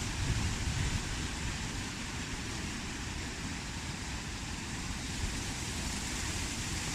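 Wind blowing with a steady hiss and a low rumble, gusting against the microphone in the first second.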